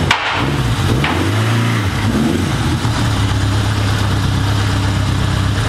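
Yamaha XS1100 motorcycle's inline-four engine, the bike ridden slowly in: the engine note dips and rises with the throttle for the first couple of seconds, then settles into a steady idle.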